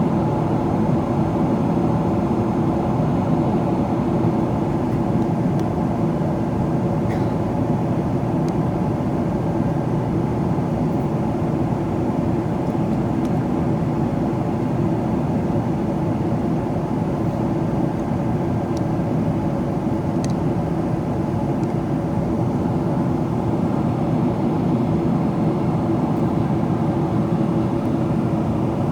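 Steady cabin noise inside a Boeing 777-300ER in descent: rushing airflow over the fuselage and the drone of its GE90-115B engines, a dense low rumble with a few steady hums.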